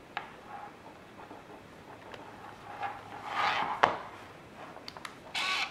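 Handling noise from a Canon Prima Sol plastic compact film camera: a scatter of small plastic clicks and rubbing as it is turned over in the hands, with the sharpest click a little under four seconds in and a brief rasping burst near the end.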